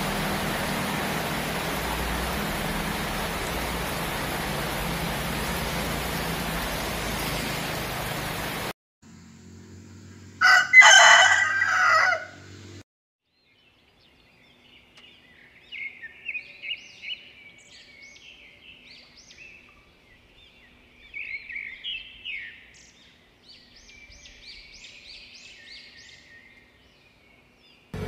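Steady rain that cuts off suddenly about nine seconds in. A rooster then crows once loudly, followed by small birds chirping faintly on and off.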